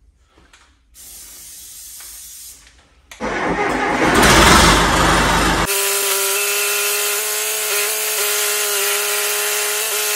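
John Deere 450 B/C dozer's turbocharged diesel engine cranking and catching about three seconds in, then running steadily with an even, pitched whine.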